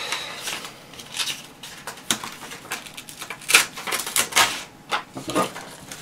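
Handling noises of a spiral notepad and a small stainless steel multitool: scattered rustles and light clicks, with a few sharper strokes in the second half.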